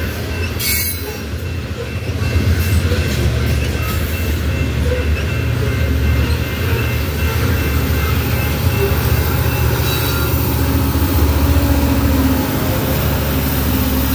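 Loaded covered grain hopper cars of a freight train rolling past at speed: a steady heavy rumble and clatter of steel wheels on the rails, with a faint wheel squeal. Near the end the diesel engine of the trailing distributed-power locomotive comes in as it draws level.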